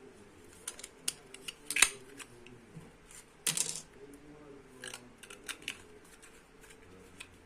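Small plastic and metal parts of an M.2 NVMe to USB-C adapter and its packaging being handled: scattered light clicks and taps, a sharp click about two seconds in, and a short rustling scrape about three and a half seconds in.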